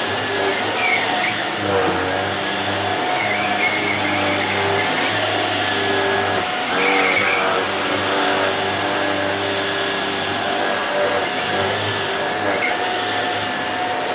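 Upright cyclone vacuum cleaner running steadily as it is pushed back and forth over carpet. The freshly repaired machine is working normally.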